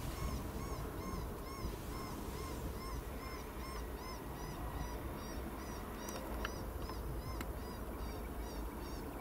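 Electronic predator call looping a squawking call used to draw in a bobcat: short arched notes repeating evenly, about three a second.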